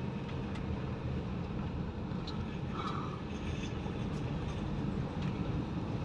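Car driving slowly, heard from inside the cabin: steady engine and road noise, with a few faint ticks.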